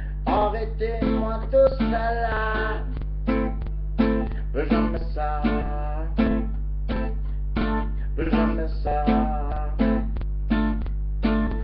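Acoustic guitar strummed in a steady rhythm, about two strums a second, as a song intro. A steady low electrical hum runs underneath.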